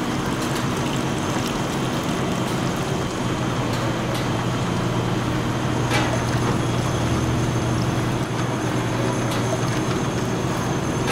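Automatic bottle-filling machinery running: a steady mechanical hum and hiss with occasional light clicks, one sharper click about six seconds in.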